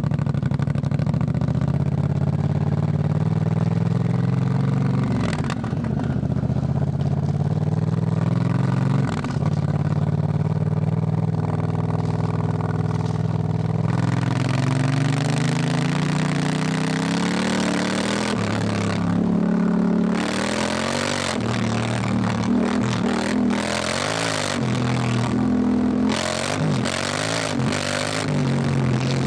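Honda Africa Twin parallel-twin engine running under way, holding fairly steady revs with two brief drops in pitch in the first ten seconds. In the last third the revs rise and fall again and again as the throttle is worked.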